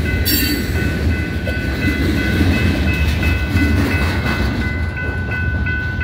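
A freight train's boxcars rolling past a grade crossing: a steady low rumble with wheel clatter, with a sharp click just after the start. The crossing's warning bell rings on top, pulsing about three times a second near the end.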